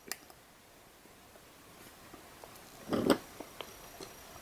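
Faint clicks and taps of a stiff wire lead being worked into a plastic breadboard's contact holes by hand, with one louder brief bump about three seconds in.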